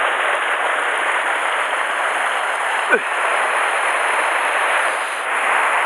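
Mountain stream rushing over rocks in a small cascade close to the microphone, a steady rush of water. A brief downward-sliding sound cuts through about three seconds in.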